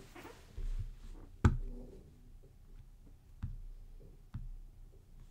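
Quiet room tone with a steady low hum, broken by a few short knocks or clicks, the loudest about one and a half seconds in, with a faint murmur between them.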